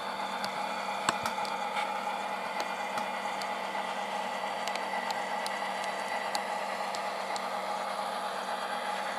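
Tsunami sound decoder in an N-scale Kato SD40-2 model playing an EMD 645 diesel prime mover, running steadily through the model's small speaker, with a few faint clicks scattered through.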